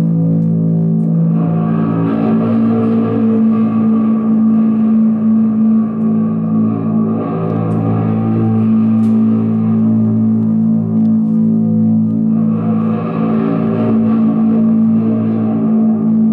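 Live experimental noise music: a steady low drone of layered held tones, with washes of distorted, processed noise that swell up and fade away three times.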